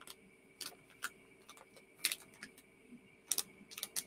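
A handful of faint, sharp clicks at uneven intervals over a steady low hum in a quiet room.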